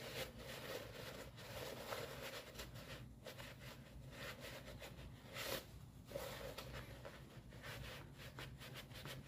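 Paper towel wiping oil out of the open aluminium crankcase of a Predator 212 engine: faint, irregular rubbing and scraping.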